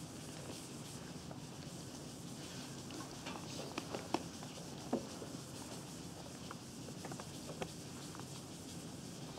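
Chalk tapping and scratching on a blackboard as formulas are written, with a few sharp taps around the middle, over a steady low room hum.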